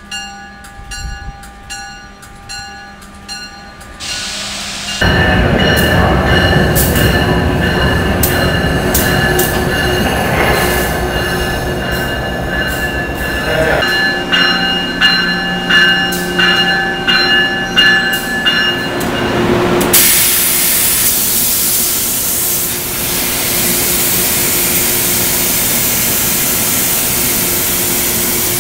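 Amtrak passenger train sounds at a station: first a fainter passage with steady tones and a run of regular clicks, then from about five seconds in a loud stretch of rumbling with repeated metallic clanks. About twenty seconds in, this gives way to a steady, loud hiss over a low engine hum at the coupling between a locomotive and a passenger car.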